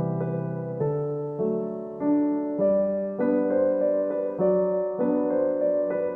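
Background piano music: a steady run of sustained notes and chords, changing about every half second.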